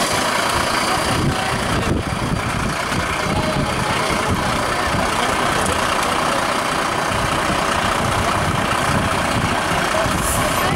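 Mercedes-Benz Atego fire engine's diesel engine idling steadily.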